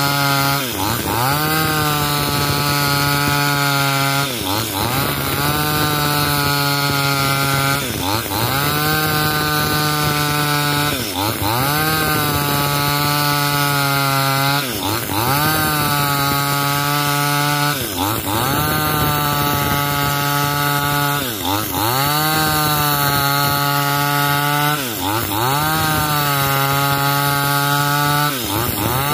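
Two-stroke chainsaw cutting lengthwise along an old coconut palm trunk at high revs. About every three and a half seconds the engine note drops sharply and climbs straight back.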